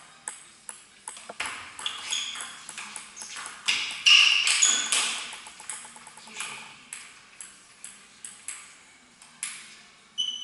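Table tennis rally: the celluloid-type ball clicking sharply off the bats and the table, about two to three hits a second. A few short high squeaks come and go, loudest about four seconds in.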